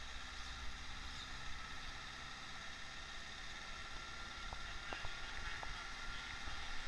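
Vehicle driving along a road: steady, low rumbling road and engine noise, with a few faint ticks late on.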